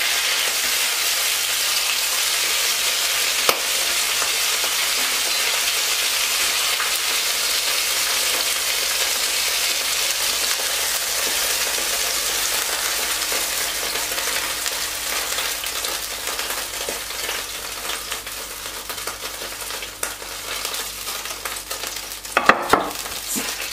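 Chicken breasts sizzling in hot oil in a frying pan, a steady hiss that eases a little in the second half. A sharp click comes about three and a half seconds in, and a few clacks come near the end.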